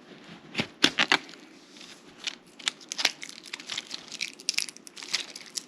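A knife cutting into hard plastic memory card packaging: irregular clicks, scrapes and crackles of the plastic, with a quick cluster about a second in.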